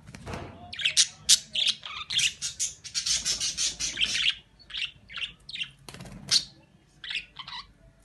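Budgerigar chirping and squawking in quick, harsh calls, packed closely together for the first four seconds or so, then a few scattered chirps.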